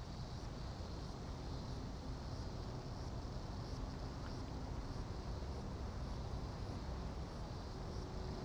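Outdoor ambience: a high insect chirp repeating evenly, about every two-thirds of a second, over a steady low rumble. A steady hum comes in near the end.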